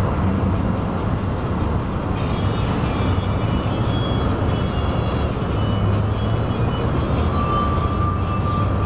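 Steady rumble of city street traffic below, with a thin high squeal starting about seven seconds in.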